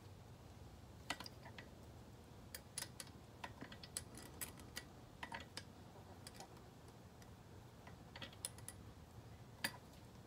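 Faint, irregular clicks and taps of a small tool and fingers working the control cable retainer on a Volvo Penta AQ270 outdrive, over a low steady hum.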